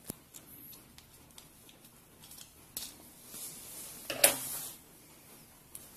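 Small plastic clicks and rustling as an ink damper and its plastic ink tubing are handled on a printhead carriage, with one louder sharp snap about four seconds in.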